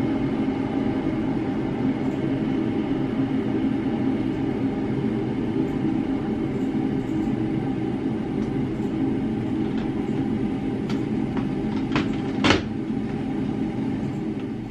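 A steady low mechanical hum runs throughout; near the end, a few sharp plastic clicks and a knock as the blender jar is seated on its base.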